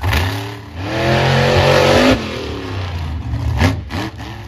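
Monster truck engine revving hard: a loud rev that climbs in pitch for about a second and cuts off sharply, then a short throttle blip near the end.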